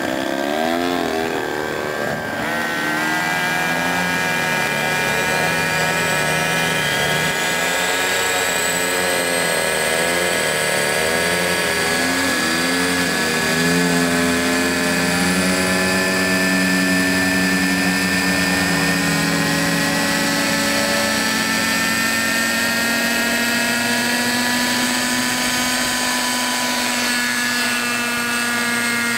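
Radio-controlled scale Bell helicopter's engine running as its rotor spins up, the pitch slowly rising and wavering. It settles into a steady whine as the model lifts into a low hover near the end.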